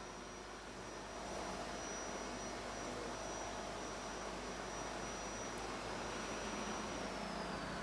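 Faint, steady background hiss and hum of a quiet room, with a thin high whine that slides down in pitch near the end.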